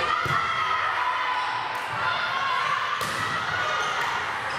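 Volleyball being struck and bouncing in a gym, a few sharp thuds over a background of voices from players and spectators.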